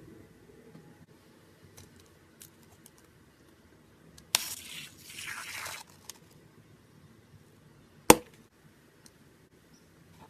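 Slime being handled: a sharp click followed by about a second and a half of crackling, then a single sharp pop later on.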